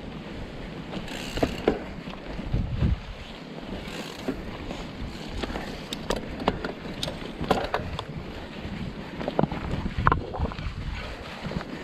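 Mountain bike rolling down rocky singletrack: tyre rumble over stones with scattered sharp clicks and rattles from the bike, and wind buffeting the microphone.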